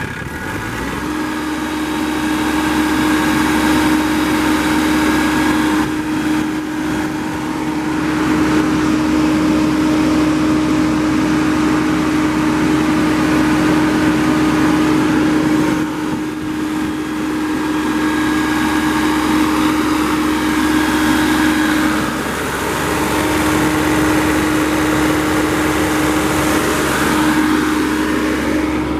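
Yanmar 3TNV84T three-cylinder turbo diesel on a John Deere 7500 E-Cut mower running. It speeds up from idle in the first second or two, then runs steadily at the higher speed, with a brief dip about three quarters of the way through.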